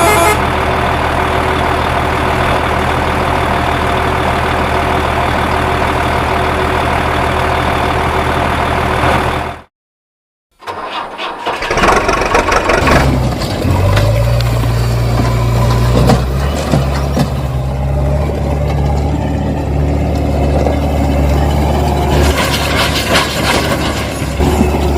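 A vehicle engine running steadily, cut off about ten seconds in by a second of silence. Then an engine starts up, rises in pitch and settles into a steady idle.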